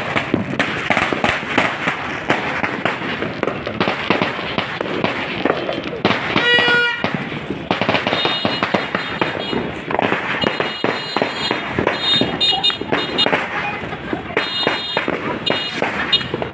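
Dense, continuous crackling and popping of many firecrackers and fireworks going off at once. A horn sounds briefly about seven seconds in, and short high toots come and go from about eight seconds on.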